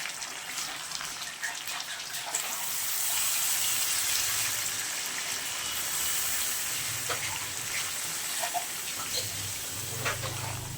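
Water being poured into a pan of chicken frying in oil and spices, with a steady hiss that swells a couple of seconds in.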